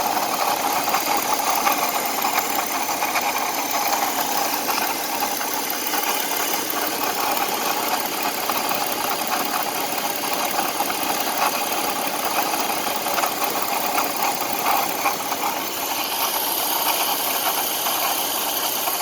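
2004 BMW 530i's straight-six engine running steadily at idle, with a screeching noise of unknown origin that the owner is trying to locate.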